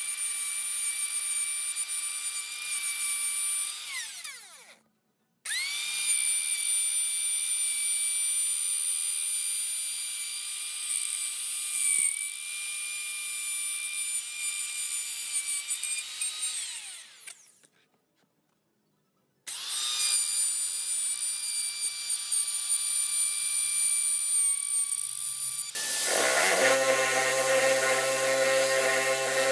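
Electric plunge router cutting a groove in a pine board, running with a steady high-pitched whine in three spells; twice it winds down with its pitch falling away before stopping. Near the end an electric drill with a 25 mm spade bit takes over, boring holes in the pine at a lower pitch.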